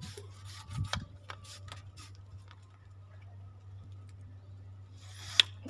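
Irregular small clicks and ticks, likely from fishing tackle being handled, over a low steady hum. A single sharper click comes near the end.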